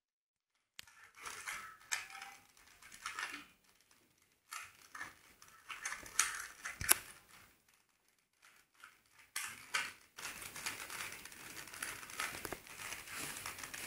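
Plastic 3x3x3 Rubik's Cube being solved by hand: its layers are turned in quick bursts of clicking and rattling, with short pauses between, then turned almost without a break near the end.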